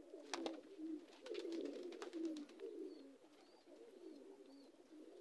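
Domestic pigeons cooing: a low, throaty warbling that comes and goes, with a few faint clicks.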